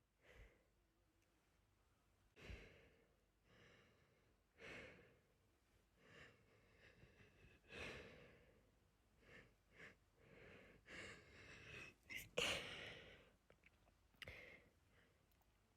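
A person breathing unevenly with a stuffy nose: a string of short, hitching breaths and sniffs, one every second or two, typical of a sneeze build-up. The strongest breath comes about twelve seconds in.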